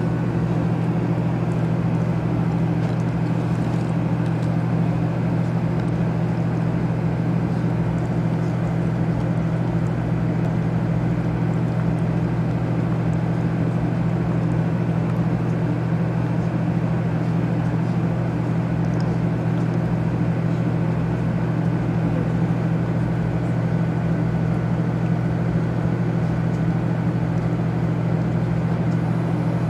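Running noise inside a 500-series Shinkansen train in motion: a steady low hum and rumble.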